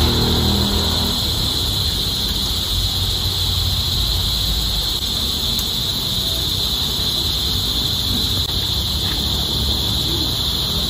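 Insect chorus droning in one steady high-pitched band, unbroken throughout, over a low rumble.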